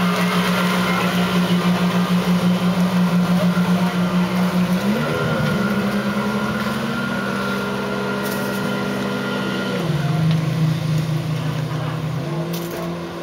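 Yamaha Exciter 270 jet boat's engines running under way, a steady note that wavers in loudness at first. The pitch shifts about five seconds in, drops around ten seconds and climbs back near the end as the throttle changes.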